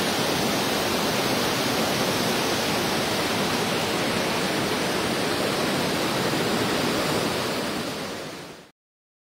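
Steady rushing noise of a waterfall, fading out near the end.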